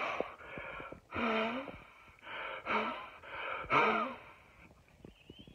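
A man blowing hard upward through pursed lips to lift his fringe: about five forceful puffs of breath, some with a strained vocal grunt in them, then it goes quiet near the end.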